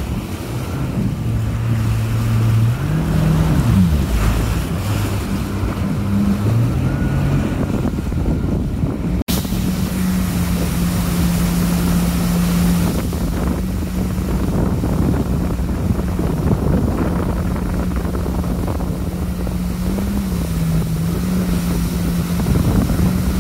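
Jet ski engine running under way, with water rushing under the hull and wind buffeting the microphone. The engine pitch rises and falls with changes of speed in the first few seconds, drops out briefly about nine seconds in, then holds nearly steady.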